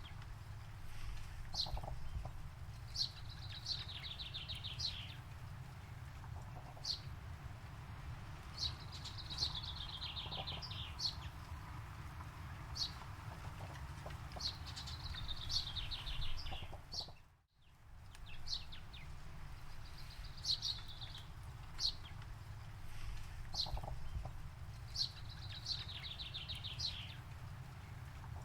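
Songbirds singing: a short, fast trill repeated every few seconds, with sharp single chirps between, over a steady low rumble. The sound cuts out for a moment about two-thirds of the way through.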